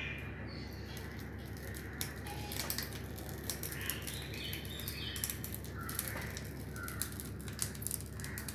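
Hand-turned metal screw-type idiyappam press squeezing rice-flour dough into strings: scattered light clicks and creaks from the handle and screw, over a steady low hum.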